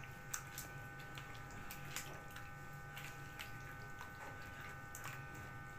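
Hand squishing and kneading chunks of chicken in a thick cream-and-yogurt marinade in a plastic bowl: faint wet squelches and small irregular clicks, over a faint steady hum.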